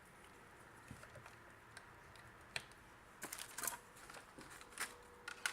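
Scattered light clicks and clatter of small hard objects being handled and moved about, a few at a time.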